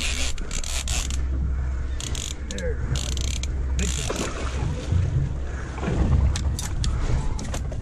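Fishing reel clicking and ratcheting as an albacore tuna is reeled up beside the boat, with splashing as the fish thrashes at the surface. A steady low hum runs underneath, and a run of sharp clicks comes near the end.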